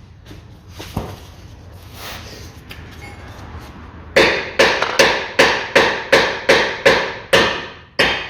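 About ten quick hammer blows on metal, a little over two a second, starting about halfway in: the suspension ball joint is being driven into place in the lower control arm. Before the blows, light clicks and a single knock.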